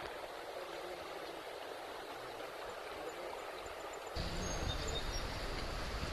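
Water rushing steadily over a shallow, rocky river riffle. About four seconds in, a louder low rumble joins it.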